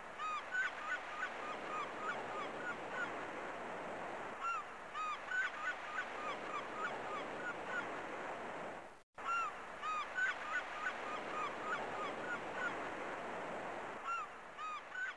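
A flock of birds calling over a steady wash of surf: many short calls, several a second, each rising and falling in pitch. The sound cuts out for a moment about nine seconds in and then resumes.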